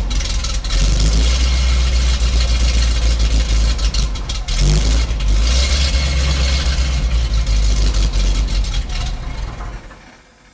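Chevrolet 366 big-block V8 in a heavy truck running through its exhaust, a loud, steady low engine note with a brief change about halfway, dying away near the end.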